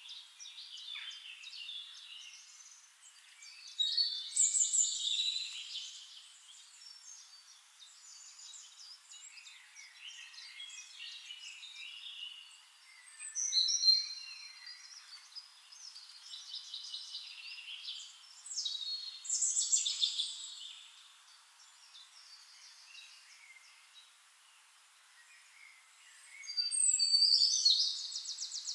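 Forest songbirds singing: several warbling and trilling phrases come every few seconds, with quieter chirps between. The loudest bursts come about four seconds in, around the middle, and near the end.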